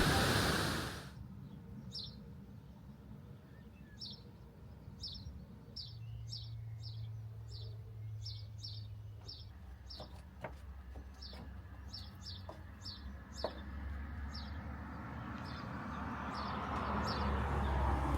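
Background music fades out in the first second, then a small bird calls over and over with short, high, downward-sweeping chirps, about one to two a second, over a steady low outdoor rumble.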